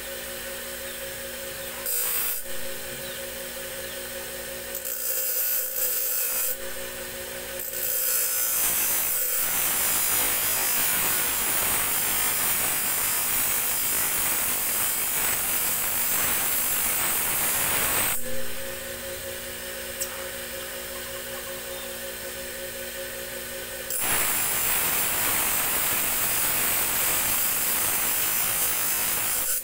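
Motor-driven abrasive grinding wheel running with a steady hum while a steel tari blade is pressed against its edge to grind it to shape. There are short rasping touches in the first seconds, then a long grinding pass of about ten seconds, and another starting about two-thirds of the way in.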